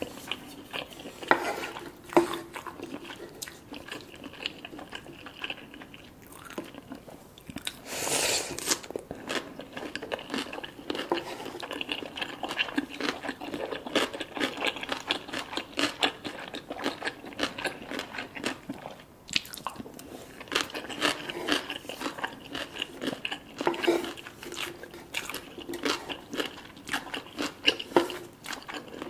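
Close-up sound of a person chewing crunchy food, with many crisp crunches and bites following one another unevenly, and a brief louder crunch about eight seconds in.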